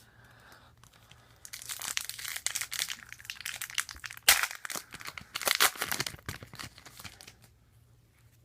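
Trading-card pack wrapper being torn open and crinkled, a run of dense crackling with one sharp crack about halfway through.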